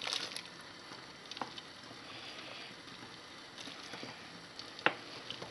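A metal ladle stirring soup in a pot, the broth sloshing faintly, with a few sharp clicks of the ladle against the pot, the loudest a little before the end.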